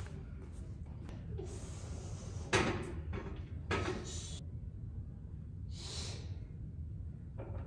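Two sudden knocks about a second apart as a loaded barbell is lifted off the squat rack's hooks, over the steady hum of the gym, then a short hiss a few seconds later.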